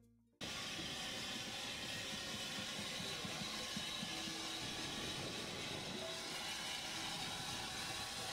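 Steam locomotive hissing steam in a steady wash as it eases slowly up to a carriage's buffers for coupling; the noise cuts in about half a second in.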